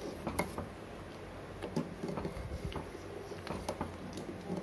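A spoon stirring hot, thickening milk in a steel pot, with light irregular clicks and scrapes of the spoon against the pot, over a low steady hum.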